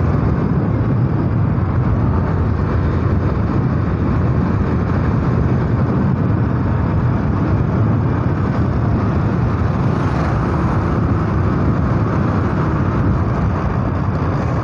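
Yamaha SZ motorcycle's single-cylinder engine running steadily as it rides along, heard from the bike-mounted camera together with heavy wind noise on the microphone.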